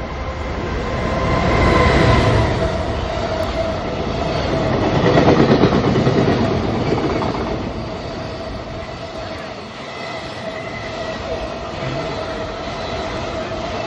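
EF210 electric locomotive hauling a freight train through a station: wheels and wagons running over the rails, with a steady whine. It swells about two seconds in and again around five to six seconds, then eases off as the wagons keep rolling by.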